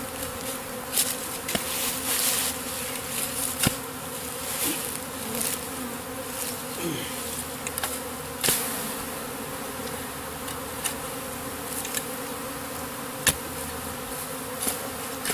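A clustered honeybee swarm buzzing with a steady hum. It is broken by scattered sharp clicks and knocks from digging around the bush, the loudest about 13 seconds in.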